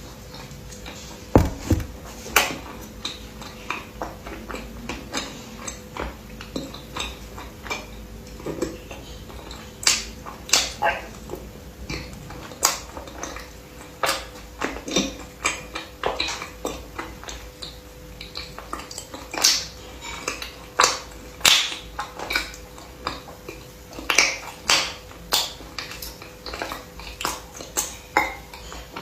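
Close-miked eating: irregular sharp crunches and clicks of biting and chewing, coming several a second at busier moments, over a faint steady hum.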